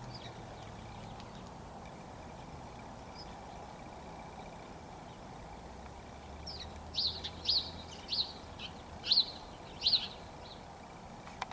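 A bird chirping: a quick run of six or seven short, high chirps about halfway through, over steady outdoor background noise.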